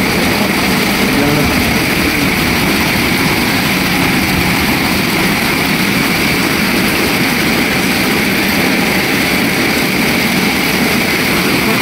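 Heavy rain pouring down onto floodwater: a loud, steady hiss.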